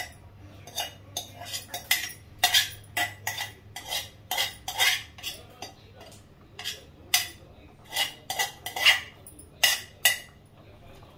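Metal spoon scraping and knocking inside a steel container: a string of irregular clinks and scrapes as boiled drumstick leaves are emptied into a pressure-cooker pot.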